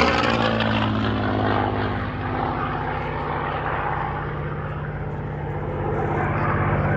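North American P-51D Mustang's Packard Merlin V12 engine running as the fighter moves away after a pass. Its drone holds a steady pitch, fades somewhat through the middle and swells slightly again near the end.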